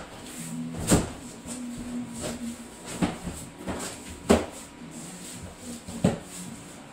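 Cardboard shipping box being opened and its packaging handled: scraping and rustling with four sharp knocks, about a second in, about three seconds in, just after four seconds (the loudest) and about six seconds in.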